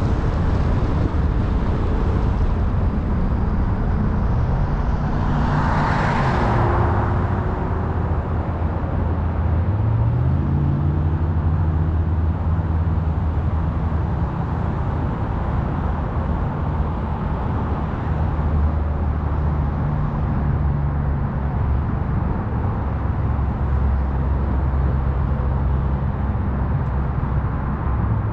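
Car driving on a city road: steady engine and tyre noise. The engine note falls about five seconds in and rises again about ten seconds in, with a brief louder rush about six seconds in.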